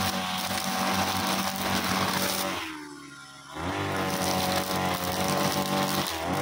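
Backpack petrol brush cutter with a nylon string line, running at high revs. About two and a half seconds in the throttle is let off and the engine falls toward idle for about a second, then revs back up. It dips and picks up again briefly near the end.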